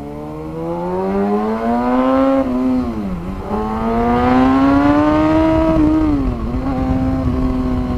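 Kawasaki ZX-6R inline-four engine accelerating hard through the gears. Its pitch climbs, drops at an upshift about three seconds in, climbs again, drops at a second upshift a little past six seconds, then holds steady near the end.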